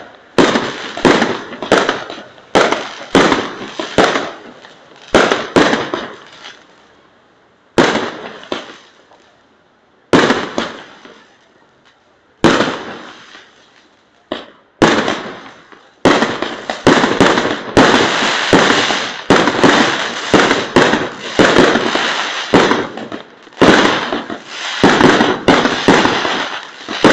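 Aerial fireworks bursting overhead: a string of sharp bangs, each trailing off after it. The bangs thin out for several seconds in the middle, then come fast and close together, several a second, near the end.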